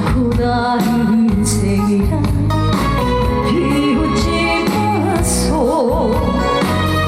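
Trot song played loud over a stage PA: a full backing track, with a wavering, vibrato-laden melody line, likely singing, in the second half.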